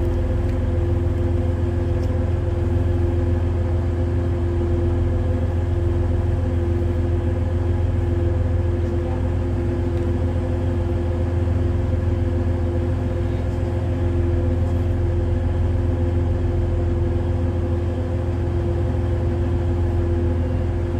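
TransPennine Express Class 185 diesel multiple unit idling at the platform: a steady low diesel rumble with a constant hum over it.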